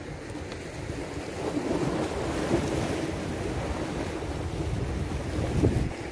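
Gusty sandstorm wind buffeting the phone's microphone, growing louder about a second and a half in, over small waves washing on the shore.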